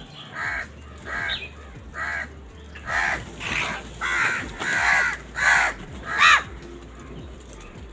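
Crow cawing in a series of about eight caws, roughly one every 0.7 s, with the last caw the loudest.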